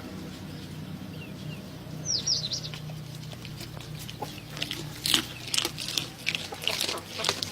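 Chickens calling, with a few quick high falling calls about two seconds in, over a steady low hum. Sharp clicks and taps come thick in the last couple of seconds.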